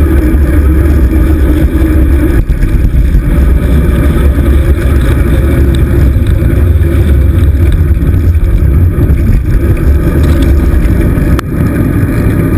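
Wind buffeting the microphone of a handlebar-mounted GoPro Hero 2 on a moving road bike: a loud, steady low rumble mixed with tyre and road noise. A single sharp click comes near the end.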